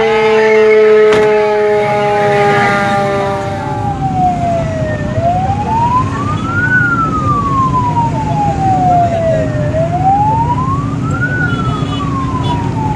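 Fire truck siren. For the first few seconds a tone with several overtones slides slowly downward, then it wails slowly up and down, rising faster than it falls, about one cycle every four to five seconds. A steady low rumble runs underneath.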